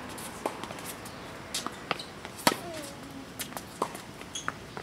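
Tennis rally on a hard court: a string of sharp pops of the ball struck by rackets and bouncing, the loudest about two and a half seconds in with a short falling tone after it.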